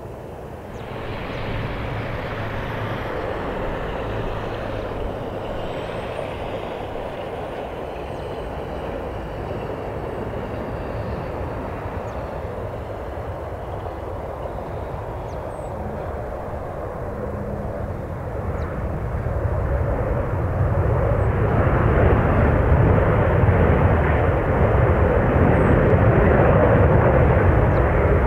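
Boeing 737-700 airliner's jet engines landing: a steady jet rumble that grows louder and heavier in the last third as the aircraft rolls out on the runway.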